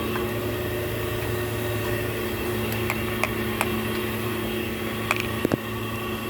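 Steady low machine hum, with a handful of light metallic clicks and taps from hand tools working at the transmission oil pan and filter, most of them in the second half.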